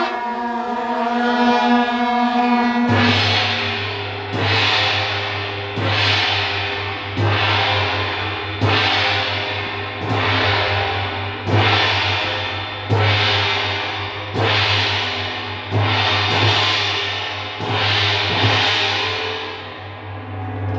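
A brass band's sustained closing chord, then hand-held processional gongs struck in slow, even time, about one stroke every second and a half, each stroke ringing on.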